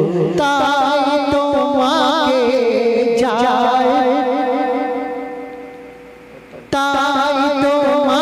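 Male voice singing a Bangla Islamic gojol, holding long notes with a wide vibrato. It fades down about five seconds in, then comes back sharply near the end.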